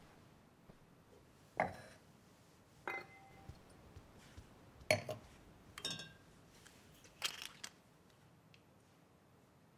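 A handful of light clinks and knocks of glassware being handled, spaced a second or so apart, some leaving a short ring.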